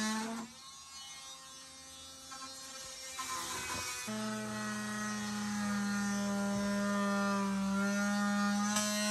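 Cordless drill motor whining steadily as it drills into the wooden wall framing. It is softer for the first few seconds, then louder from about four seconds in, its pitch sagging slightly under load near the end.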